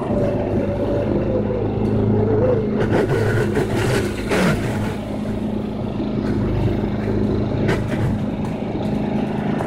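Snapper mower engine running steadily, with a wavering whine over it for the first few seconds and a brief harsh burst of noise about four seconds in.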